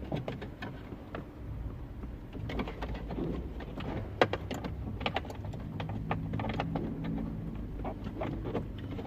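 Clicks, taps and short scrapes of a GPS antenna cable being tucked down behind plastic dashboard trim, with one sharp click about four seconds in, over a low steady hum.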